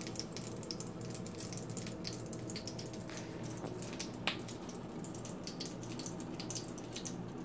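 Butter sizzling in a frying pan: a steady hiss with many small crackles.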